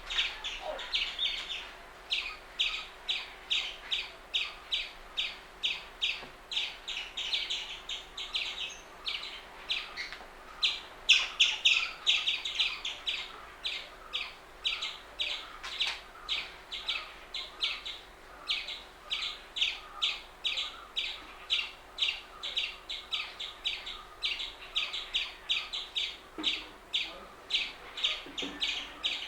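Indian palm squirrel calling: a long, steady run of short, high chirps, about three a second.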